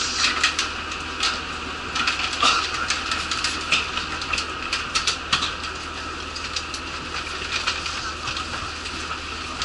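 Interior of a stationary shuttle bus: a steady engine and blower hum, with frequent rustles of carrier bags, clicks and shuffling steps as passengers board and settle into seats. The rustling and clicking thin out after about six seconds.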